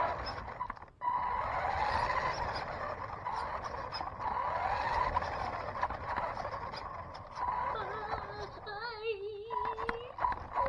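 Electric RC car motor and gears whining as it drives, the pitch rising and falling with speed, with a rough rumble of its wheels over the ground. Near the end a short wavering, warbling call cuts in.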